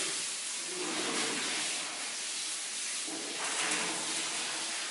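Water spraying from a newly fitted drinking-fountain outlet, a steady even hiss.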